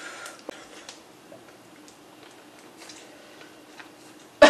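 Faint, scattered clicks and taps of eating by hand: fingers picking at seafood shells, and chewing. A sudden burst of laughter breaks in at the very end.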